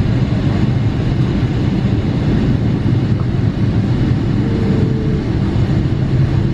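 Cabin noise inside a Boeing 777-300ER airliner: a steady, loud, deep rumble from its GE90 jet engines and airframe.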